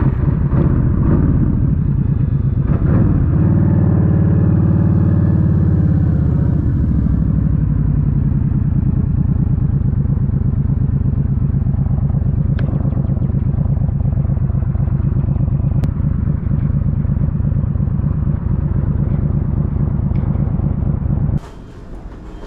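A 1300cc motorcycle engine running loud, its pitch rising and falling as it revs from about three to seven seconds in, then holding steady. The sound cuts off suddenly near the end.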